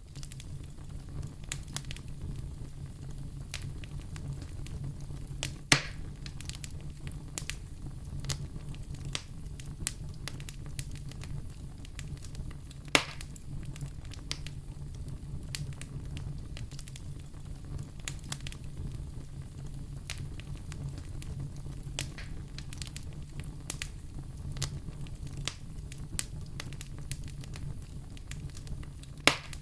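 Wood fire in a fireplace crackling steadily with many small snaps over a low steady rumble. Three louder pops stand out: about six seconds in, about halfway through, and near the end.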